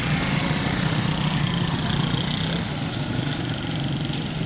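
Small motorcycle engines running and pulling away close by, over a steady din of road traffic.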